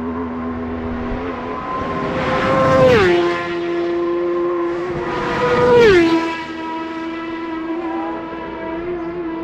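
Two racing motorcycles pass at full speed, about three seconds apart. Each engine note drops sharply in pitch as the bike goes by, then fades as it moves away, with an earlier bike still heard receding at the start.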